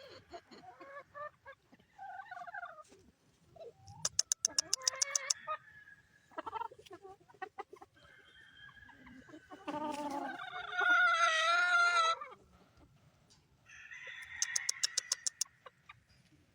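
Roosters clucking, with one rooster crowing for about two seconds near the middle, the loudest sound. Two short bursts of rapid clatter come about four seconds in and again near the end.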